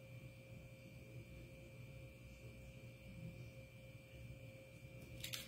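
Near silence: a faint, steady electrical hum of room tone, with a short scratchy noise just before the end.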